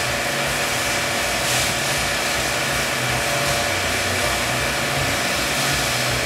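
Steady whirring hiss of a servo-hydraulic loading system running, with a few held tones over it and a pulsing low hum.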